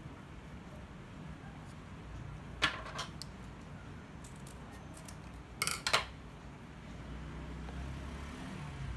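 Scissors snipping through a paperboard cream carton: one sharp cut about two and a half seconds in, then a quick cluster of snips near six seconds. Near the end a soft low sound as the thick cream starts pouring into a plastic squeeze bottle.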